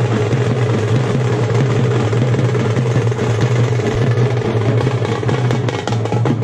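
Frame drums beaten fast with sticks, a loud, dense, unbroken run of strokes.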